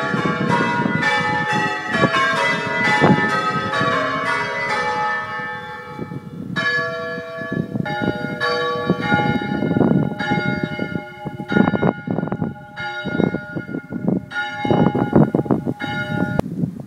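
Church bells ringing, the strokes dense and overlapping for the first few seconds, then fewer and more widely spaced, each leaving a ringing tone.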